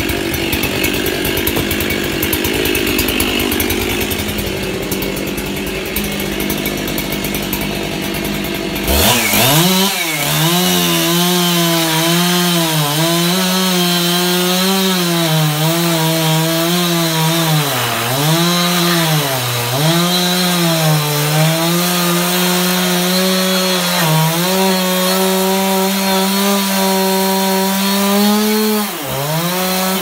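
A chainsaw cutting through a bundle of sawmill slabs: about nine seconds in it speeds up into the cut, its pitch dipping repeatedly as the chain bogs in the wood and recovering, until it winds down just before the end. Before that, a steady mechanical noise without a clear pitch.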